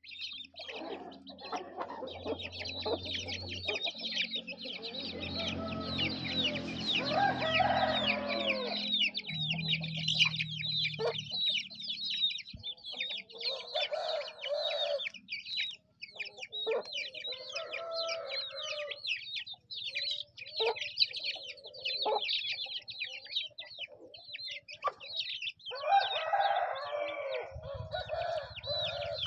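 A flock of young Bhimavaram game-fowl chicks peeping constantly and rapidly while they peck at feed. Longer, lower calls from grown chickens break in several times. A low steady hum runs under the first ten seconds.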